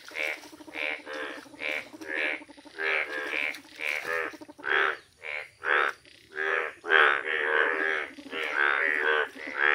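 Indian bullfrogs calling: short, evenly repeated croaks, about one and a half to two a second, that thicken into an overlapping chorus over the last few seconds. Bright yellow males calling in the breeding season.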